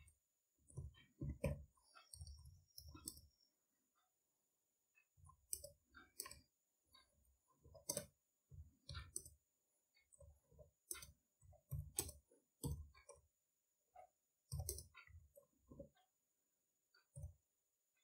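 Faint keystrokes on a computer keyboard, typed in irregular runs, with a pause of about a second and a half a few seconds in.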